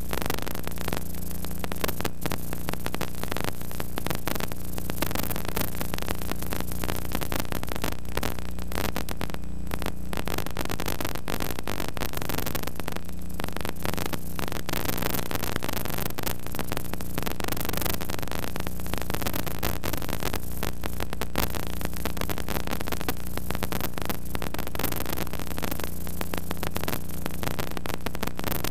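Steady electrical hum with its overtones under a constant crackling static hiss, unchanging throughout; no sound of the game itself.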